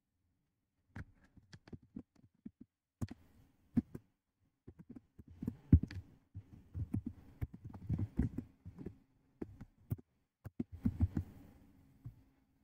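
Computer keyboard typing: irregular keystrokes, sparse at first and coming in quicker runs from about halfway through.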